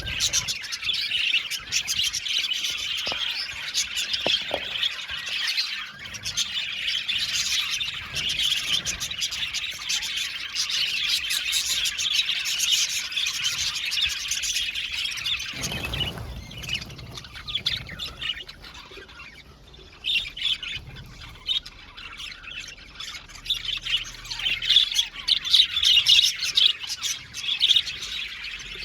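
A flock of budgerigars chattering with many overlapping chirps and squawks. The chatter dies down for a few seconds past the middle, after a brief dull thump, then comes back louder with sharp calls near the end.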